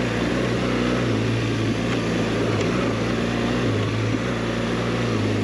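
BMW GS 1200's boxer-twin engine running at low, steady revs on a dirt trail, with small rises and dips as the throttle changes, over a rush of wind and tyre noise.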